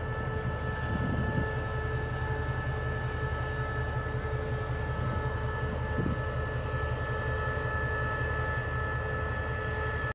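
SRT QSY-class diesel-electric locomotive running close by: a steady low engine rumble with a steady whine at several pitches over it, unchanged throughout.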